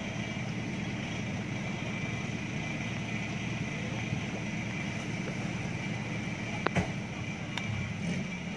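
Off-road 4x4 engines running steadily at low revs, with two short sharp knocks about a second apart late on.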